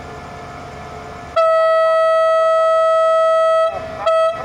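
Air horn of a Thai railway QSY diesel-electric locomotive sounding one long, loud steady blast of about two seconds, then a short toot on the same note: the departure signal.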